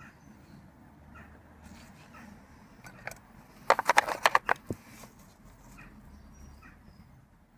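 Loose hand tools clattering as they are handled in a tool box: a quick run of sharp metallic clicks and knocks lasting about a second midway, with a few faint taps either side.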